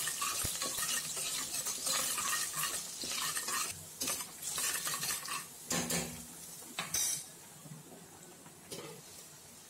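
Steel ladle stirring and scraping a tempering of onions, mustard seeds and curry leaves frying in coconut oil in a pressure cooker, with the ladle clinking against the metal pot over a steady sizzle. The scraping stops about seven seconds in, leaving a fainter sizzle.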